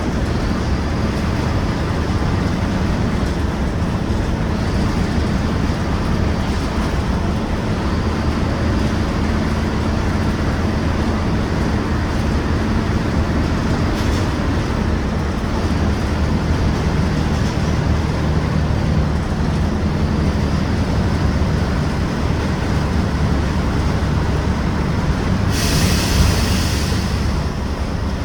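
Mercedes-Benz OF-1721 city bus's front-mounted diesel engine running steadily under way, a low rumble. Near the end a short burst of compressed-air hiss from the bus's air system.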